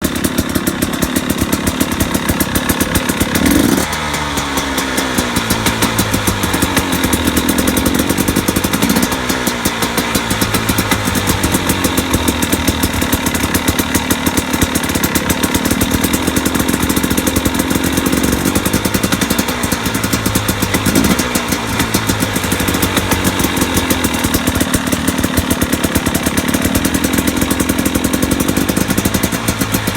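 2017 KTM 250 XC-W's two-stroke single-cylinder engine idling with a repeating knock, revved briefly a few times. The owner cannot tell what the knock is and wonders whether it is pipe bang.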